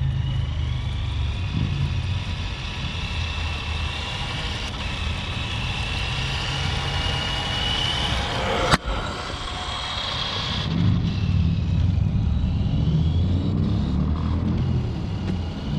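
Electric motor and gear whine of a Tamiya Volkswagen Karmann Ghia M-06L RC car driving on asphalt, rising and falling with the throttle over a steady rumble of tyres on the pavement. A sharp click about nine seconds in.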